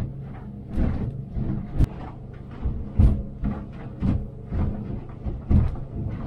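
Boat's 200 outboard motor running steadily under way, heard from inside the pilothouse cabin, while the hull slams into choppy waves with irregular thumps and knocks every half second to a second, the sharpest about two and three seconds in.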